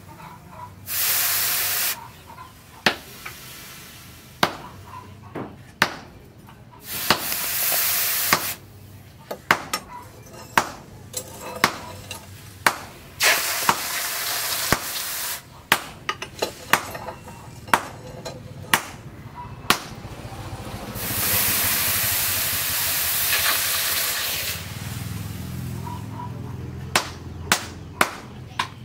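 Hot forged steel machete blade quenched in a water trough, hissing and sizzling in four bursts of a few seconds each as it is dipped again and again. Short sharp clicks and knocks fall between the bursts, with a quick run of knocks near the end.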